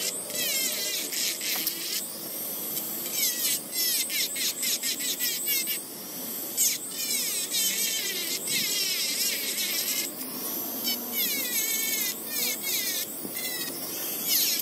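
Handheld rotary tool with a sanding drum grinding rust off a steel hammer head: a high-pitched motor whine that wavers in pitch, dropping out briefly a few times.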